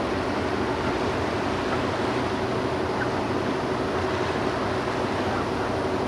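Steady drone of a boat's diesel engine running at constant speed, a single unchanging hum over a wash of noise.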